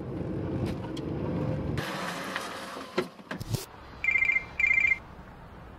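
A car engine running, heard from inside the cabin, then a rush of noise and a few sharp knocks. After that a mobile phone ringtone sounds twice, two short, rapidly pulsing rings about half a second apart, the loudest sound here.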